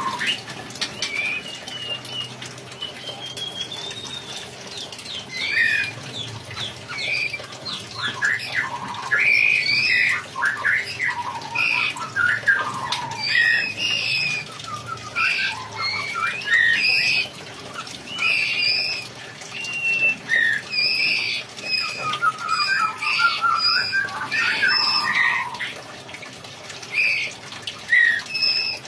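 A songbird singing a long, varied song of whistled glides, chattering notes and quick trills, with short pauses between phrases.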